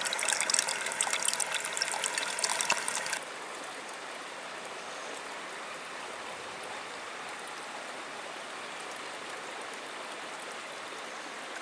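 Filtered water trickling in a thin stream from the sand tier of a three-tier bandana water filter into a partly filled steel pot, splashing on the water's surface. The splashing cuts off abruptly about three seconds in, leaving a steady quiet hiss.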